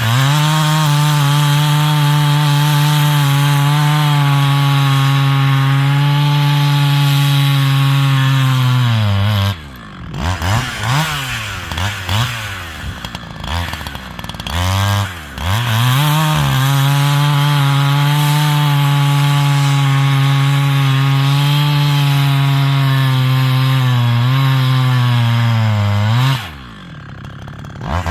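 A 70cc chainsaw held at full throttle as it cuts through a stringybark log: two long cuts of about nine and ten seconds. Between them the engine drops back and is revved up and down a few times. It drops to idle again near the end.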